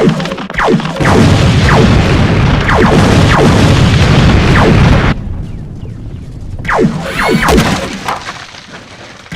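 Film battle sound effects: a loud, deep rumbling boom that runs about four seconds and cuts off suddenly, followed by a few quick falling tones.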